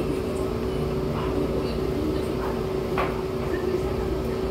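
Steady low machine hum in the room, with a few faint clicks and one sharper clink about three seconds in as metal tableware is handled.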